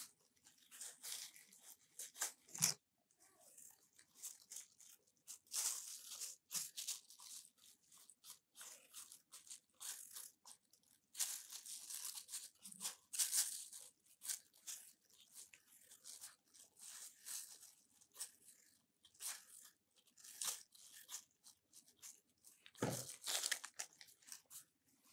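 Apples being peeled by hand with a blade: irregular crisp scraping and crunching strokes as the skin is pared off. A sharp knock about three seconds in and a duller thump near the end.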